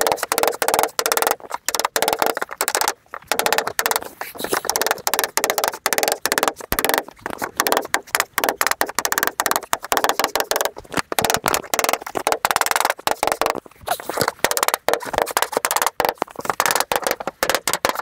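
Mallet blows on a bending dolly, several a second, folding the edge of a painted steel standing-seam roof panel into an L-shaped bend over the dolly, each blow with a short metallic ring. The rhythm breaks off briefly a few times as the dolly is moved along the edge.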